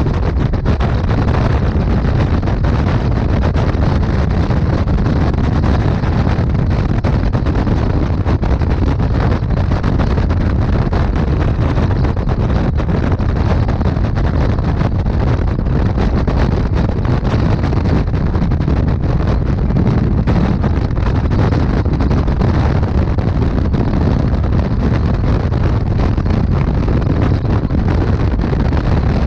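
Wind rushing over the microphone of a Honda Gold Wing GL1800 cruising at highway speed, with engine and road noise underneath. Loud and steady, with no changes.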